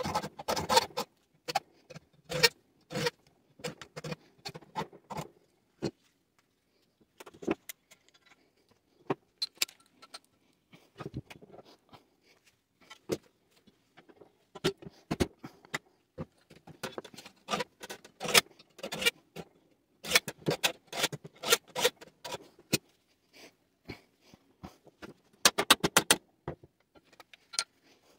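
Irregular metallic clinks, clacks and rattles of air-conditioner parts being handled during scrapping. They come in clusters with short pauses, and no power tool is running.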